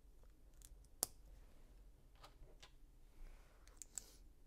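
Plastic LEGO pieces being handled and pressed together: a few small sharp clicks, the loudest about a second in and another near the end, with a faint rustle a little after three seconds.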